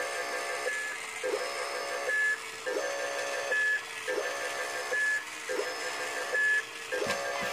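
Battery-powered toy robot playing a looping electronic sound effect: a beeping, buzzing tone pattern that repeats about every 1.4 seconds. There is a short knock near the end.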